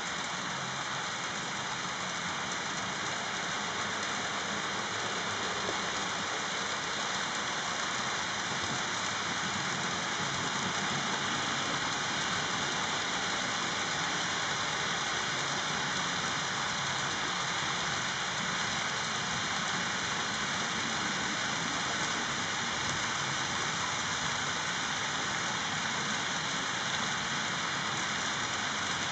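Model trains rolling along the layout's track: a steady, dense rattle and hiss of small metal wheels on rail, with the hum of the running trains.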